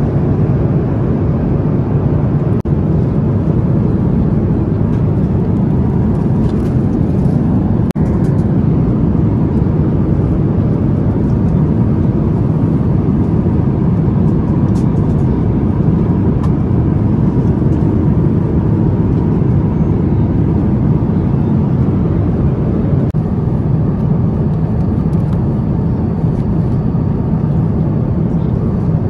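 Steady cabin noise of an Airbus A350-900 in flight: an even low rumble of engines and airflow through the fuselage.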